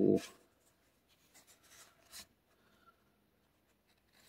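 Magic: The Gathering trading cards sliding and rubbing against each other as a booster pack is thumbed through, a few soft swishes about one and a half to two seconds in.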